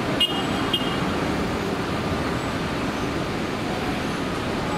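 Airbus A380-861's four Engine Alliance GP7200 turbofans on final approach, a steady rushing jet noise at approach power. Two brief high clicks come in the first second.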